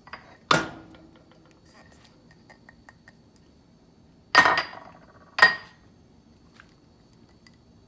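Kitchenware knocking and clinking as diced vegetables are tipped into a frying pan of browned meat. There are three sharp knocks with a short ring: one about half a second in, then two about a second apart near the middle, with faint taps between.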